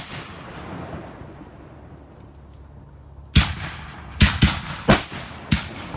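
Fireworks going off: a fading rumble and crackle for about three seconds, then five sharp bangs in quick succession.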